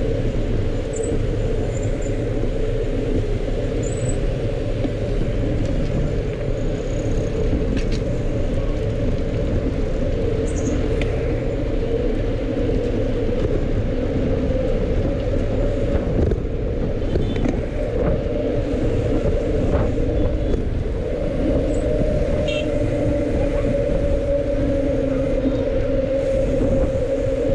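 Steady rumble of wind and road noise on the microphone of a camera riding along on a road bike.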